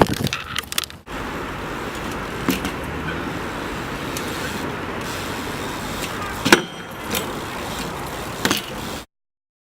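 Steady outdoor background noise, like distant traffic, with a few sharp clicks scattered through it; it cuts off abruptly near the end.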